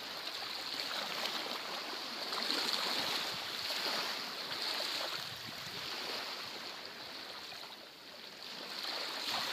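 Small waves washing against a sandy shore, a steady rushing noise that swells and eases, dropping lowest about eight seconds in.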